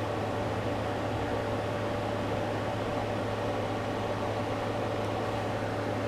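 Steady low hum with an even hiss, unchanging throughout: background room noise of a running appliance or fan.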